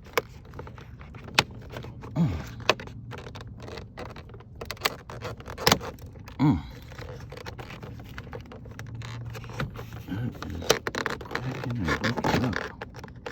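A screwdriver scraping and prying at a brittle plastic car door-jamb switch, with scattered clicks and cracks as the old switch breaks up.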